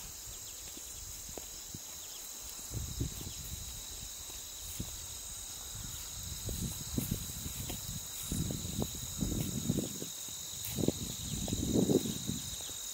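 Footsteps on a dirt path, sparse at first and heavier and more frequent in the second half, over a steady high trilling of insects such as crickets.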